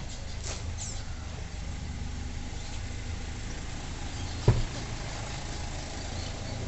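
A vehicle engine idling with a steady low rumble, and one sharp knock about four and a half seconds in.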